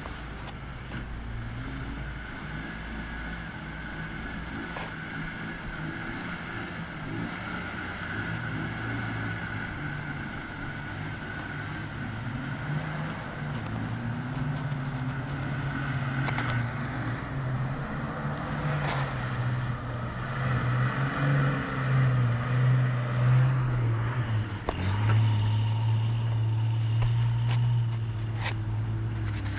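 Nissan Patrol four-wheel drive's engine working under load up a slippery grassy slope, its revs rising and falling, getting louder over the second half with a few sharp knocks.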